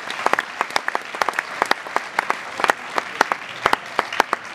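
Spectators' scattered applause between points in a table tennis match, made of irregular separate claps, a few a second.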